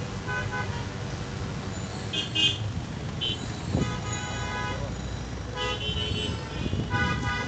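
Road traffic with vehicle horns honking again and again, several short toots and one held for about a second about four seconds in, over a steady low rumble of engines.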